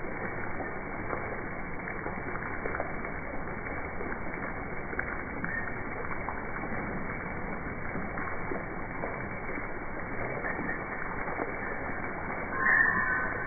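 Water splashing steadily into a stone fountain basin. Near the end a brief, louder sound with a couple of steady pitches stands out.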